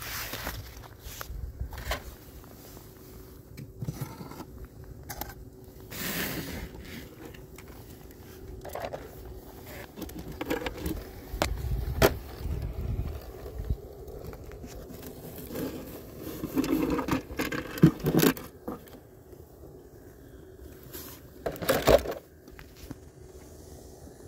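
Hands gathering small garden-railway accessories off the layout: irregular scrapes, clicks and light clatter, with louder knocks and rustling about two-thirds of the way through and again near the end.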